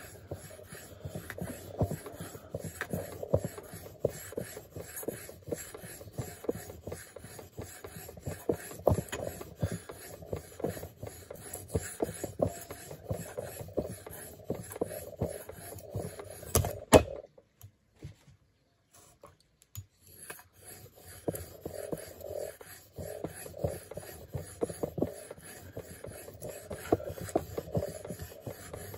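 Leatherman PST multitool blade scraped back and forth on a sharpening stone in rapid repeated strokes. A sharp clack about halfway through, then the strokes stop for about three seconds before resuming.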